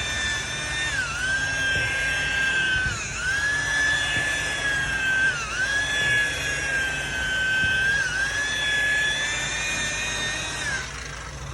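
Makita electric rotary buffer with a 3M pad running steadily as it polishes compound into boat gelcoat, a high whine whose pitch dips briefly about four times as it is pressed onto the surface, then winds down near the end.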